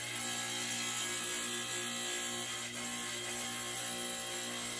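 Tabletop tile saw running steadily with an even motor hum and hiss as a white piece is pushed through the blade.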